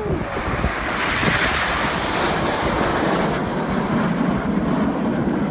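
Formation of RAF Red Arrows BAE Hawk jets passing during a display. Their engine roar is loud and sounds highest about a second in, then drops lower as they go by.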